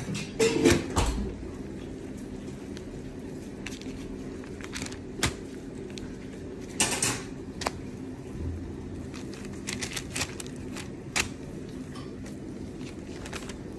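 Parchment paper rustling and crinkling under a gloved hand pressing raw burger patties flat, with scattered light clicks and knocks from handling on the baking sheet. A steady low hum runs underneath.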